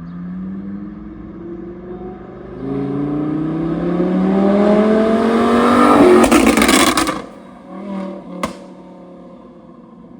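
Audi R8 5.2 FSI V10 with a pop-and-crackle ECU tune revving up, its pitch climbing for several seconds. On lift-off about six seconds in, the exhaust crackles and pops for about a second. It then drops back to a steady idle, with a small burble and then one sharp bang from the exhaust.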